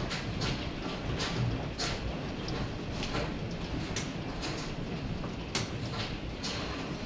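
Hailstorm: a steady rushing hiss of falling hail with sharp, irregular clicks and knocks of single hailstones striking hard surfaces, several a second.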